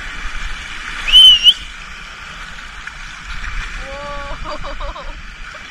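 River rapids rushing past an inner tube in a steady hiss of moving water. About a second in, a brief shrill high-pitched tone rises and holds, the loudest sound; near the end, a short wavering vocal sound from a person.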